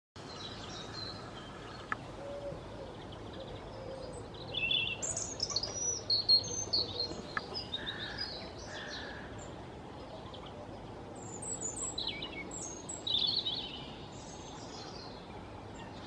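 European robin singing: two phrases of high, thin, quickly changing notes, the first about four and a half seconds in and the second about eleven seconds in, over steady background noise.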